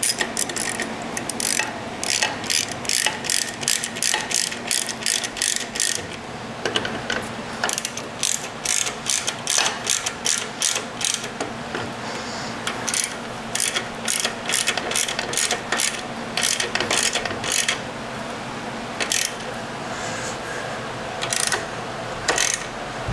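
Hand socket ratchet clicking in quick runs of strokes with short pauses, running in the bolts of a motorcycle rear brake lever bracket before final tightening.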